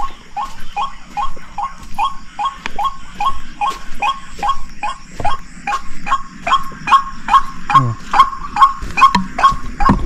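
White-breasted waterhen (ruak-ruak) call played as a hunting lure: a fast, even series of 'kru-ak' notes, about three a second, each a short downward sweep. The calls grow louder in the second half.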